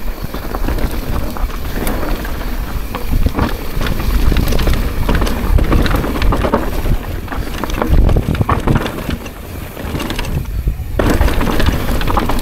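Downhill mountain bike running fast over a rough trail: wind buffeting the microphone and the tyres, chain and frame rattling with many sharp knocks over rocks and roots. There is a short lull near the end, then the rattle returns suddenly.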